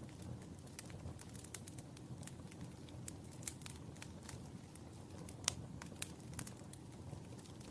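Burning wood in a fireplace crackling: a low, steady rush of flame with frequent irregular sharp pops and snaps, the loudest pop about five and a half seconds in.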